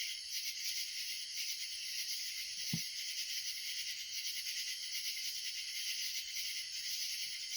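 Steady high-pitched chorus of insects trilling, with one brief click about three seconds in.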